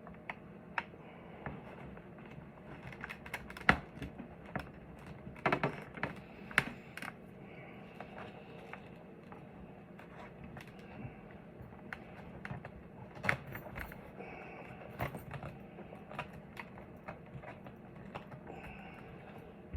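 Hands handling and fitting the small plastic parts and wiring of a Cardo Freecom4x helmet intercom inside a motorcycle helmet: irregular clicks, taps and rustling, with a few sharper clicks scattered through.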